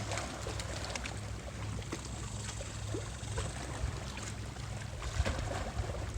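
Steady waterside ambience at a bay: a continuous low rumble with faint lapping water and scattered small clicks.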